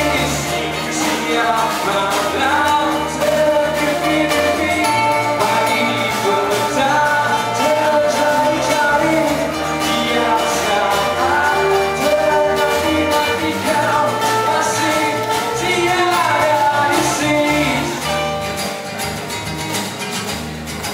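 Live band playing a song: acoustic guitars strummed over bass and drums, with a man singing lead.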